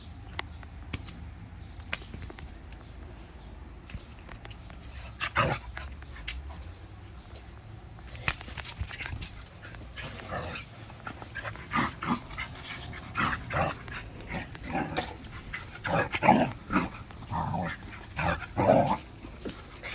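Portuguese Water Dog puppy barking and yipping in a run of short, repeated bursts through the second half, after one single bark about five seconds in. Scattered sharp clicks come before the barking.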